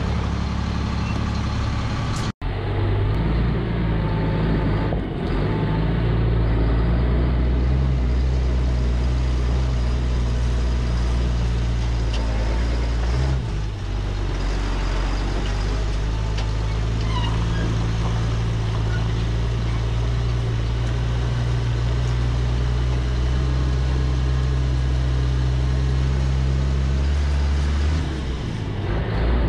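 GMC C8500 dump truck's diesel engine running steadily as the truck drives along, heard from outside the cab.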